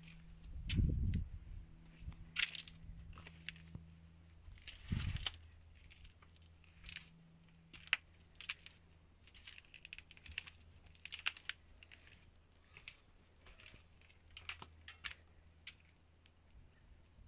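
Footsteps crunching on a dry dirt path and brushing dry grass and scrub, irregular crackles throughout, with two low thumps about one and five seconds in, over a faint steady low hum.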